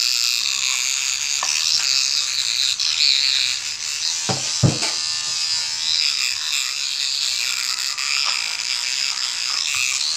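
Electric toothbrush buzzing steadily as it brushes teeth, with two dull knocks about four and a half seconds in.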